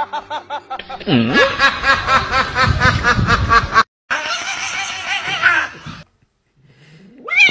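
Human laughter in quick, evenly repeated bursts that cuts off suddenly a little before halfway. After the cut comes about two more seconds of a different voice-like sound, then a brief quiet gap.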